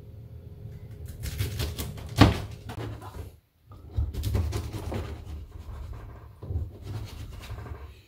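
A kitchen knife cutting enoki mushrooms on a plastic cutting board, a run of quick strokes with one sharp knock about two seconds in. After a brief gap, the knife chops blanched bracken stems on the board in further bursts of strokes.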